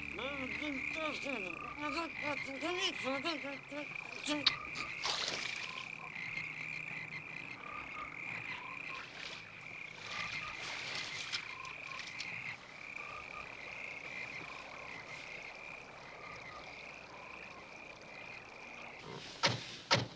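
A chorus of frogs calling, with a steady high trill running underneath and many short rising-and-falling croaks crowding the first few seconds. Feet splash in shallow pond water a few times, and two sharp knocks come near the end.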